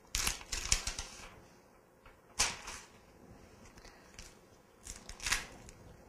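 Plastic backing being peeled off a transparent film dressing and the film handled: short crinkling rustles, several in the first second, then single ones at about two and a half and five seconds.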